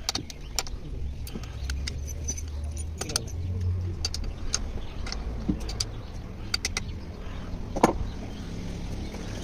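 Light, irregular metallic clinks and taps of hand tools and bolts being handled on a stripped-down diesel engine, with one sharper metal knock near the end, over a low steady rumble in the background.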